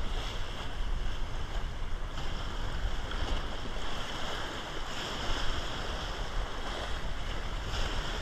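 Sea waves washing and splashing against breakwater rocks, with wind buffeting the microphone.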